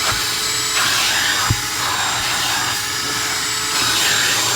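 Small Shop-Vac 1.5-gallon wet/dry vacuum running steadily, its airflow rising and falling as the nozzle works over car floor carpet. A light knock about a second and a half in.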